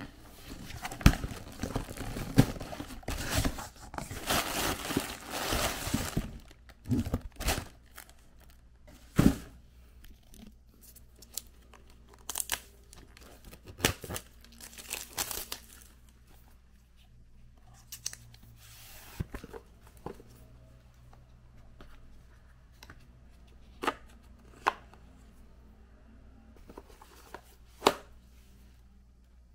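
Tearing and crinkling for about the first six seconds, followed by scattered sharp clicks and short rustles of something being handled.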